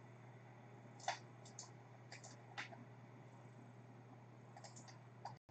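Faint clicks of a computer mouse and keyboard: a few single taps scattered about a second apart, with small clusters around one and two seconds in and near the end. A low steady hum runs underneath.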